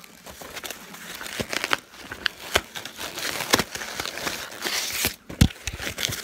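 Rustling and crinkling of a bobblehead's packaging being worked open by hand, with scattered clicks and knocks and a heavier thump about five seconds in.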